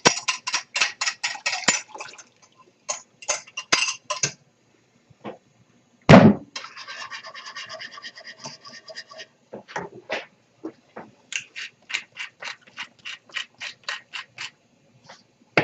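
A utensil stirring gravy in a pot as cornstarch slurry is mixed in to thicken it, in quick rhythmic scraping strokes about three or four a second. There is a single loud knock about six seconds in.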